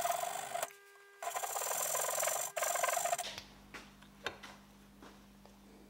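Hand file rasping across a small copper pipe piece clamped in a vise: three long strokes, the last two nearly back to back. After the strokes there are a few faint clicks.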